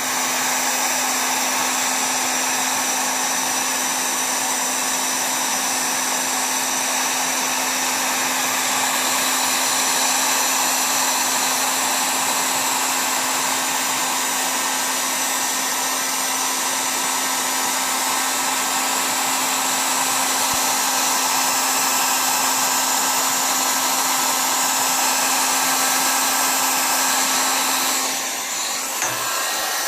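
Electric heat gun running steadily, its fan blowing hot air onto vinyl grille letter decals to soften their adhesive, with a steady hum under the rush of air. The sound dips and shifts briefly near the end.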